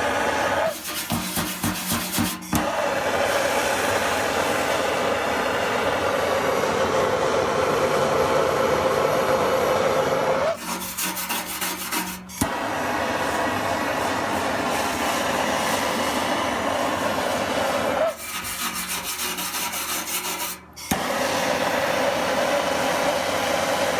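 Handheld gas torch flame hissing steadily as it heats tinning butter on a steel gas tank to tin-plate the metal before soldering. The hiss drops away three times for a second or two, about a second in, about eleven seconds in and near eighteen seconds in.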